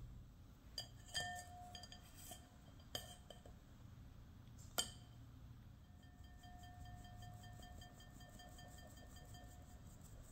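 A metal mesh sieve clinking against a large ceramic bowl: four sharp knocks in the first five seconds, then an even run of faint ticks, about four or five a second, as the sieve is shaken to sift flour, with the bowl ringing faintly underneath.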